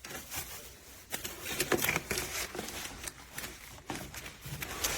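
Scattered light clicks and taps as a stainless steel electric kettle and its lid are handled.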